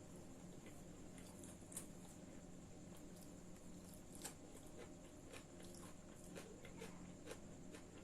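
A person chewing and eating: faint, irregular mouth clicks every second or so, over a steady low hum and a thin high whine.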